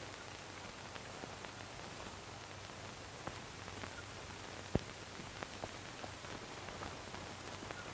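Steady hiss and low hum from an old film soundtrack, with scattered crackles and pops and one sharper pop a little after the middle.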